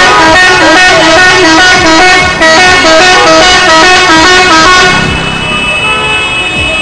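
A vehicle's musical horn playing a loud, fast tune of short stepped notes, about four a second, over and over. It stops about five seconds in, leaving traffic noise.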